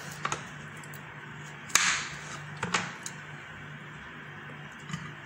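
A few sharp clicks and knocks from handling things on a kitchen counter, the loudest about two seconds in followed by a brief rustle, over a steady low hum.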